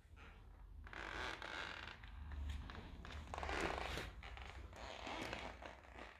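Old wooden floorboards creaking underfoot: a run of rasping creaks, loudest about three and a half seconds in.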